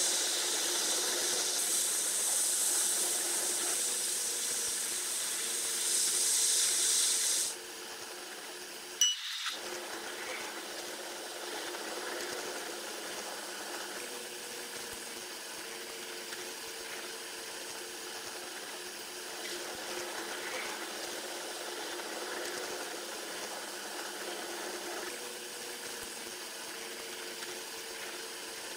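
Train running sound from the locomotive cab, played back at ten times speed so that the rumble of wheels and drive becomes a steady rushing hiss. About seven and a half seconds in the bright hiss drops off sharply to a quieter, duller rush, and a sharp click with a split-second dropout comes near nine seconds.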